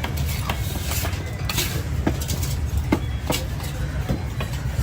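Irregular sharp knocks of a fish-cutting knife chopping on a cutting block, over a steady low rumble of background noise.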